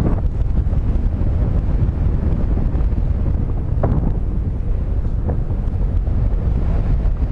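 Rushing airflow buffeting the microphone of a paraglider in flight: a steady, loud, low wind rumble.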